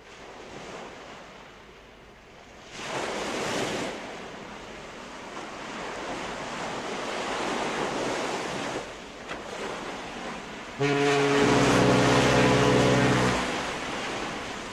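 Small sea waves lapping and sloshing around a camera held at the water's surface, in uneven surges. About eleven seconds in, a louder set of steady low sustained tones comes in over the water and shifts pitch a couple of times.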